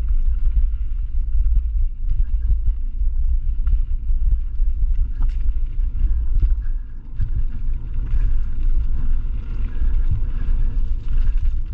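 A mountain bike riding down a dirt forest trail. The sound is a steady low rumble of wind buffeting the microphone together with the tyres on the ground, with frequent small clicks and rattles from the bike over bumps.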